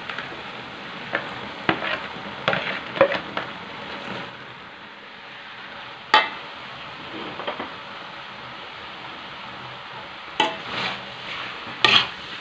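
Macaroni stir-frying in a wok: a steady sizzle, with a metal spatula scraping and knocking against the pan several times.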